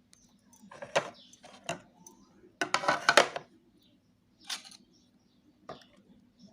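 A spoon clinking and scraping against plates while kishk is dished out: a few separate knocks, with a louder cluster about three seconds in.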